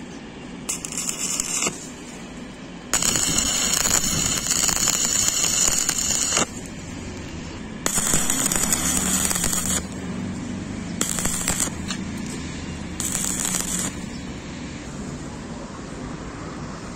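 Stick (arc) welding: the arc crackles and sizzles in five separate bursts, the longest about three and a half seconds, with quieter gaps between them.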